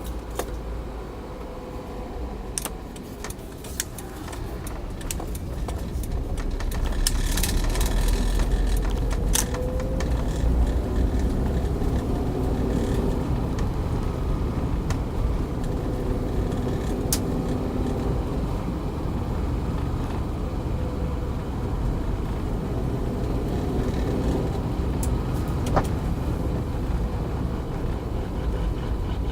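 A 2011 manual-transmission Toyota Avanza on the move, with a steady low engine and road rumble, some faint gliding tones and a few sharp clicks. Near the end, as it decelerates, a whirring sound that the owner likens to a blender and finds abnormal.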